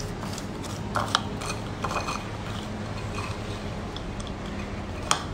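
A spoon stirring roasted chickpeas coated in melted chocolate in a bowl: scattered scrapes and clinks, a few about one and two seconds in and one near the end, over a steady low hum.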